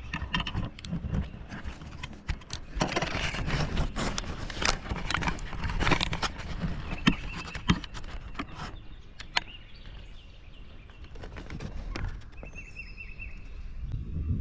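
Handling noise at the camera: irregular taps, clicks and scrapes as eclipse glasses are held over the lens, over a low rumble. The knocking thins out after about nine seconds, and a thin steady high tone comes in near the end.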